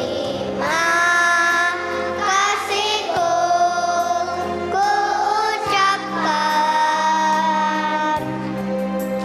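Young children's choir singing long held notes over a musical accompaniment.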